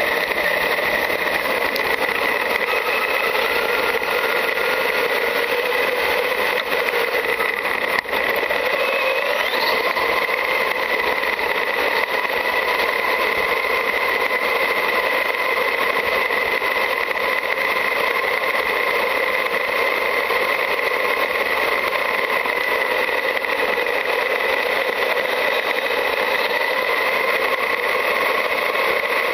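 Onboard sound of a Traxxas UDR radio-controlled desert truck driving over dirt and grass: a steady hiss of running noise with faint whining tones from its electric drivetrain. One sharp knock comes about eight seconds in.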